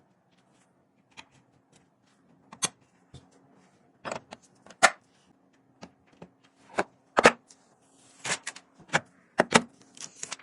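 Irregular sharp clicks and knocks of computer parts being handled and fitted, hard plastic and metal tapping and snapping, coming faster and louder in the second half.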